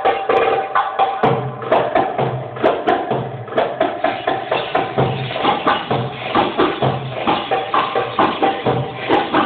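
Live Arabic music from a small band with keyboards and drums: a fast, steady percussion beat under a keyboard melody, with low bass notes coming in about a second in.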